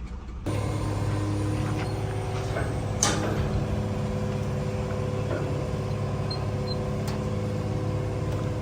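A heavy engine idling with a steady hum, with a single metallic clank about three seconds in.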